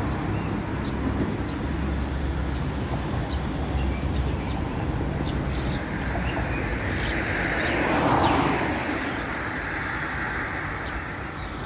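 Road traffic running steadily, with a vehicle passing close by about eight seconds in, the loudest moment.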